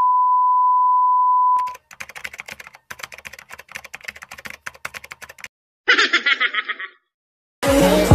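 A steady single-pitch test-pattern beep for about a second and a half, then a rapid run of typewriter-style typing clicks for about three and a half seconds, a brief snicker of laughter, and intro music starting near the end.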